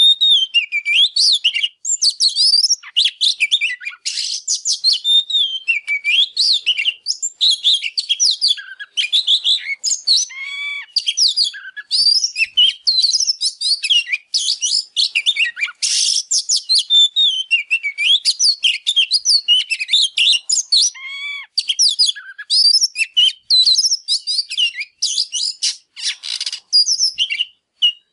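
Male oriental magpie-robin in full, excited song: a long, fast stream of varied high whistles, slurred glides and chirps with only brief pauses.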